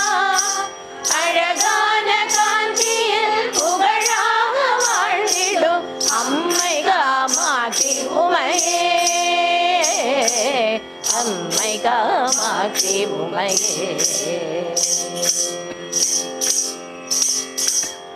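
Women's group singing a Tamil devotional bhajan in Carnatic style, a long ornamented melodic passage without clear words, over the steady drone of an electronic sruti box. A jingling hand-percussion beat keeps time about two to three strokes a second. The voices stop about fifteen seconds in, leaving the drone and the beat.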